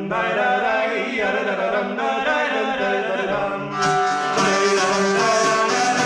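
A voice sings wordless syllables ("tan-da-da") over a steady held drone. About four seconds in, a louder, brighter instrumental melody joins.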